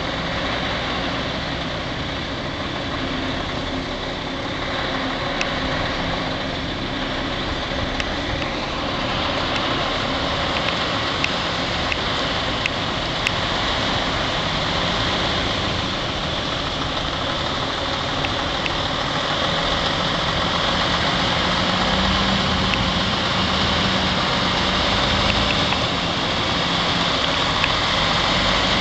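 Diesel engine of a MAN truck with a drawbar trailer running slowly at low speed while manoeuvring. It grows louder in the last third as the truck comes closer.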